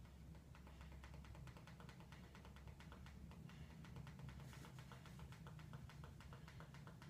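Near silence: room tone with a low hum and a fast, even run of faint ticks.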